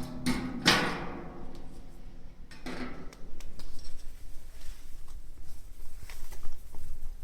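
Knocks and clicks, the loudest a ringing clank about half a second in and another near the middle, followed by a run of quick light ticks.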